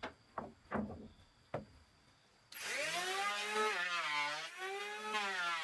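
Four or five sharp knocks, then about two and a half seconds in a power tool starts abruptly and runs, its pitch dipping and rising as it works under load.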